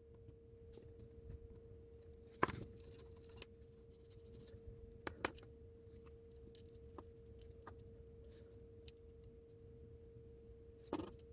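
Scattered small metal clicks, taps and scrapes from handling tools against a small diecast car body, over a faint steady hum. The loudest clicks come about two and a half, five and eleven seconds in.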